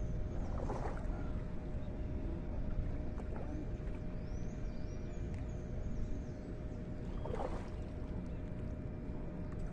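A hooked fish splashing at the water's surface as it is played on the line, twice: about a second in and again near the three-quarter mark. Birds chirp over a steady low rumble.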